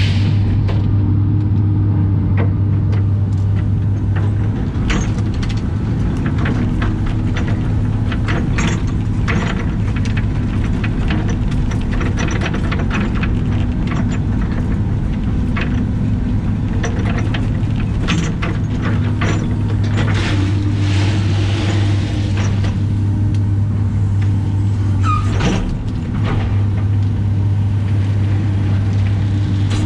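Caterpillar excavator's diesel engine and hydraulics running steadily, heard from inside the cab, with a low hum and a hydraulic whine that rises and falls as the boom and bucket move. Scattered clicks and rattles of gravel come from the bucket spreading the rock.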